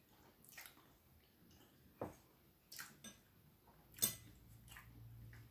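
Knife and fork clinking and scraping on a plate while cutting a soft pastry: a few light, separate clinks, the sharpest about four seconds in.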